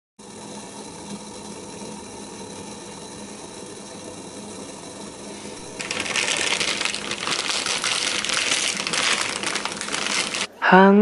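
A steady low hum, then from about six seconds in the crinkling and rustling of a plastic Shin Ramyun instant-noodle packet being handled.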